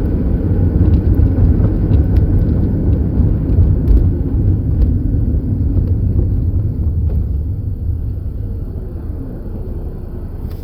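2011 Ford Ranger pickup driving, a steady low engine and road rumble that gradually gets quieter over the last few seconds.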